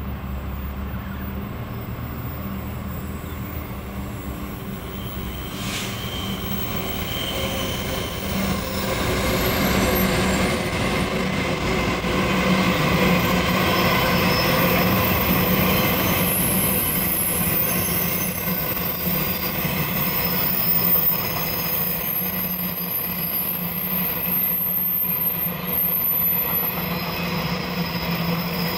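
Two CM class diesel-electric locomotives hauling an empty grain train pass by. A low engine drone builds and is loudest from about ten to twenty seconds in, then comes the steady rolling rumble of empty grain hopper wagons, with a high wheel squeal in the later part.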